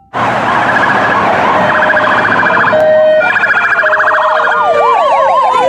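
Ambulance and police car sirens sounding together: several overlapping patterns, a rapid yelp trilling and, from about four and a half seconds in, a slower up-and-down warble, over a loud rushing noise.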